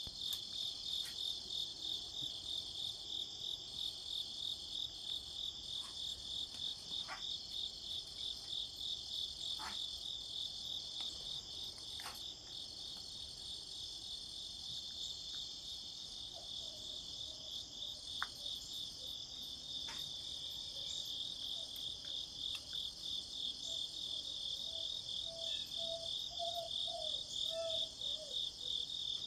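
A chorus of insects chirping in a steady, even pulse of several chirps a second, over a continuous high buzz. There are a few faint clicks, and faint short notes sound near the end.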